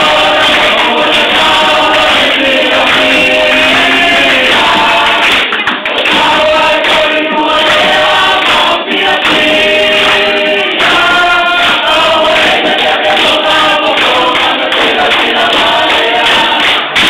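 A choir singing loudly together, several voices in harmony, with some notes held long.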